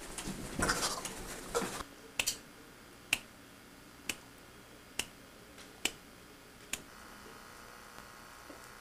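A string of sharp single clicks, about one a second, each with a short ring, after nearly two seconds of louder, rough noise at the start.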